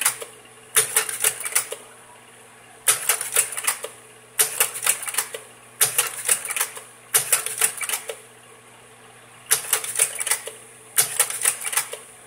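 Kodak Carousel 650H slide projector's slide-change mechanism clattering: seven short bursts of rapid clicking, about one every one and a half seconds, over the projector's steady low hum.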